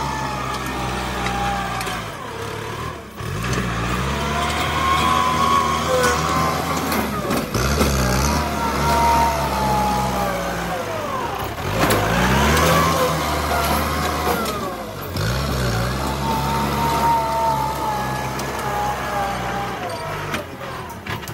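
Kubota M8540 tractor's four-cylinder diesel engine running under load while pushing soil with its front blade. Its pitch sags and climbs again about every four seconds as it works back and forth.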